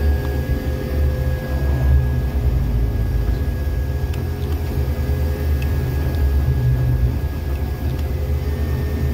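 Jackson 6700 track tamper's engine running steadily, a low drone heard from the operator's cab, with a steady higher whine over it and a few faint ticks.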